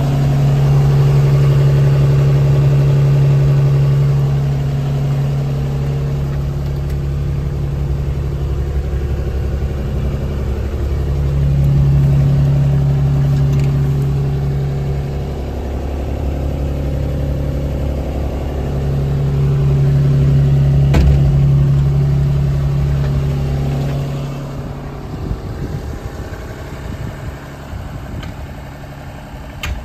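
JCB 16C-1 mini excavator's diesel engine running steadily, heard from inside the cab, its loudness swelling and easing a few times. About three-quarters of the way through it falls away to a quieter hum.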